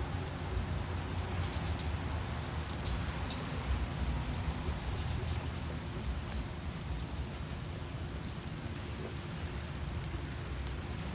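Steady rainfall, a continuous even hiss, with a few short high bird chirps in quick clusters about one and a half, three and five seconds in.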